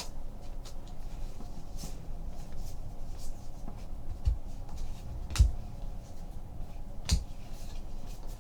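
Trading cards being handled as a pack is opened and gone through: light scratching and flicking with three soft knocks, the middle one loudest.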